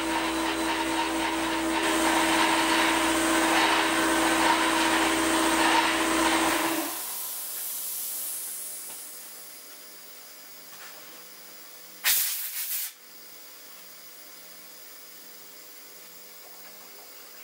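Hardinge CHNC CNC lathe running its threading cycle with the coolant on: a steady machine hum with a held tone under a strong hiss. About seven seconds in the machine and its hum cut off abruptly as the cycle ends, and the hiss fades away over the next few seconds. About twelve seconds in there is one short, loud burst of hiss.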